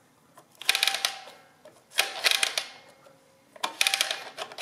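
Dial-admatic adding machine's rotary cents dial turned three times. Each turn gives a rapid run of ratcheting clicks with a light metallic ring, as the register carries automatically into the next digits.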